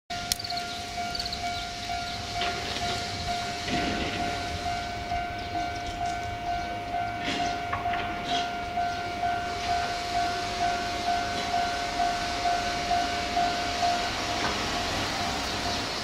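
Japanese railway level-crossing alarm ringing its electronic ding about twice a second, a steady single-pitched tone that stops a couple of seconds before the end as the barriers come down.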